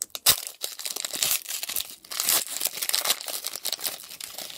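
Foil Pokémon trading-card booster pack being torn open by hand, the wrapper crinkling and crackling, with a sharp crack about a quarter second in.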